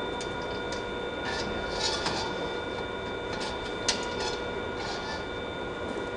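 Assembly work noise: scattered clicks and clanks of tools and metal parts, the sharpest about four seconds in, over a steady hum with a thin high whine.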